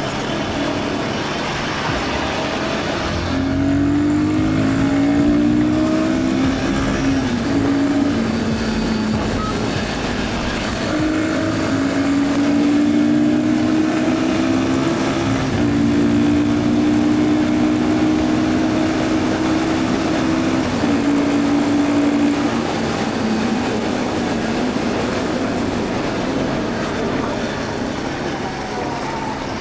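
Royal Enfield Guerrilla 450 single-cylinder engine pulling at highway speed, its note climbing and holding in several steps through the middle, under heavy wind rush across the microphone.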